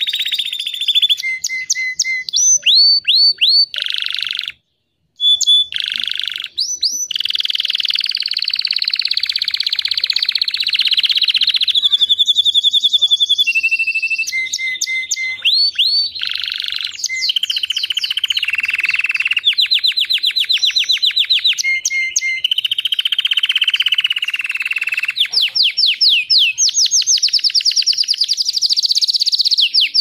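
Canary singing a long, loud song of fast trills, rolls and quickly repeated rising notes, broken only by a short pause about five seconds in.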